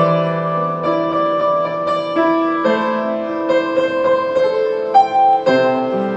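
Upright piano played at a slow pace: held bass notes under a melody of chords that change every half second to a second, with one louder note about five seconds in.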